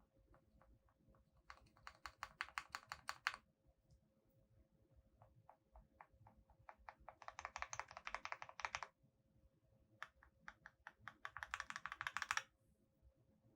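Typing on a QK65 mechanical keyboard with lubed Gateron Oil King linear switches in an aluminium plate, damped with PE and plate foam. Scattered single keypresses alternate with three quick bursts of fast typing.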